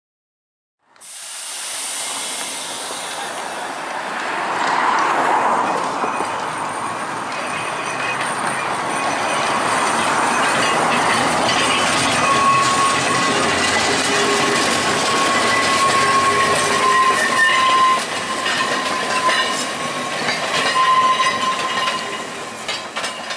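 Electric tramcar running past close by on the track, its wheels clicking over the rail joints and squealing thinly from about halfway on. The sound cuts in suddenly about a second in and grows louder over the next few seconds.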